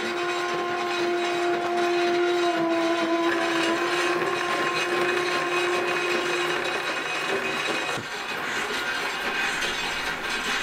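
A sewing machine running with a steady clattering rattle. Over the first two-thirds a long held musical note sounds, stepping up once in pitch, then stops.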